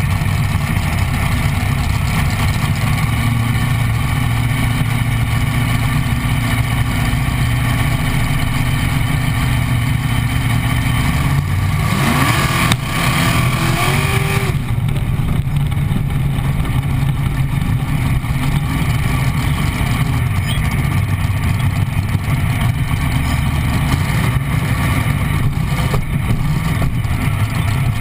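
Chevrolet-powered dragster's engine running at idle, close to the on-car microphone, with a short blip of revs about twelve seconds in.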